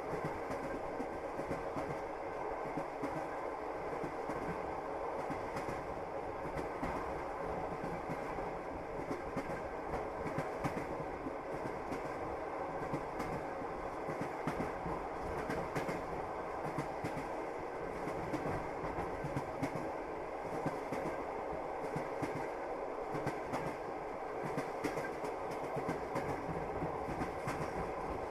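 Train wheels clacking on the rails as a train runs steadily along, the clatter of the wheels over rail joints laid over a continuous running noise of the cars.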